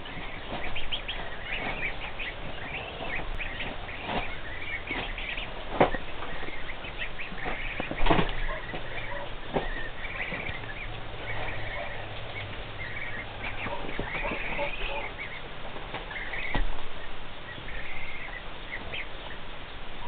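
Cotton Patch goose goslings peeping: many short, high chirps overlapping throughout, some rising and falling in pitch. A few sharp knocks break in, the loudest about eight seconds in.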